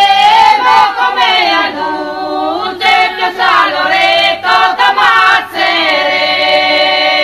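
A group of women singing together, an Italian rice-weeders' (mondine) song about the eight-hour working day. They end the phrase on a long held note over the last second and a half or so.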